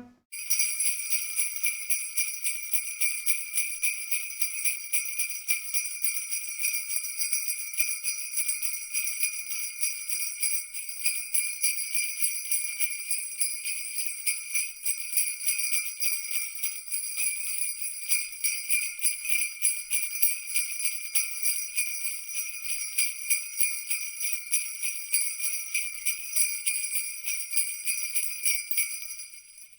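A cluster of jingle bells shaken continuously in a quick, regular rhythm, a bright metallic jingling that fades out near the end.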